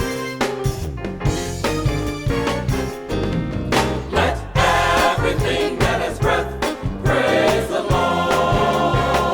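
Gospel music with singing voices over a steady beat.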